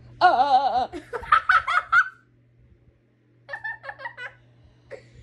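Laughter in bursts: a loud, wavering drawn-out laugh, then quick laughing syllables, and after a short pause a boy's giggle about three and a half seconds in.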